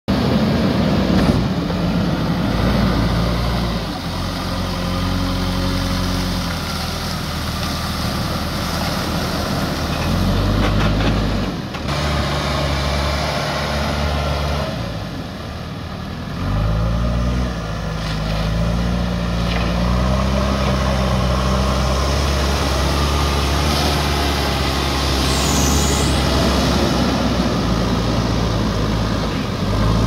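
JCB 3DX backhoe loader's diesel engine running, its pitch rising and falling several times as it is throttled up and down, with water splashing and rushing around the wheels and bucket as it drives through a shallow river.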